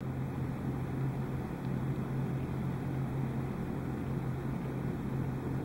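Steady low hum over a faint even hiss: room tone, with no distinct events.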